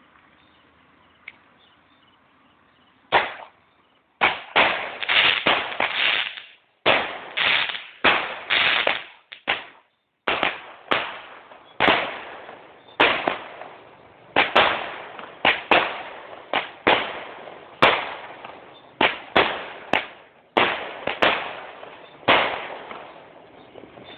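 Fireworks going off: after a quiet start, a long rapid series of loud bangs begins about three seconds in, each bang followed by a short echoing decay, coming about one or two a second until near the end.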